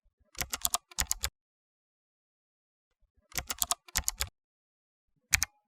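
Keyboard typing: two bursts of rapid key clicks, each about a second long, then a single sharp click near the end.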